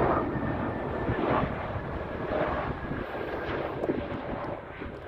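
Jet airliner's engines, a steady rushing noise with a faint whine that slowly fades.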